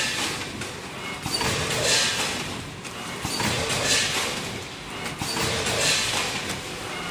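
Vertical form-fill-seal packing machine for gusset bags of snacks running, its noise rising to a surge about every two seconds as each bag is sealed, cut and dropped onto the output conveyor.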